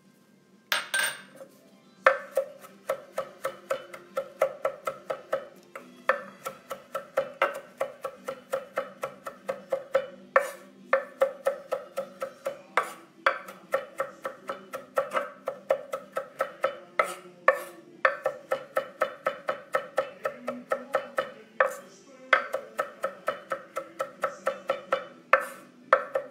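Chef's knife chopping parsley on a wooden cutting board: quick, rhythmic strikes of the blade on the board, about three a second, each with a short wooden ring like a wood block. It starts about two seconds in, after a single knock.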